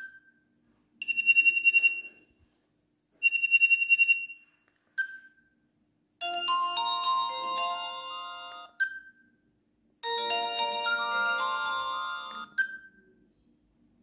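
Alcatel OT-222 flip phone's speaker previewing its built-in MIDI ringtones one after another: two short high trilling bursts, then two melodic ringtones of several notes each about two and a half seconds long. A short beep sounds between the previews.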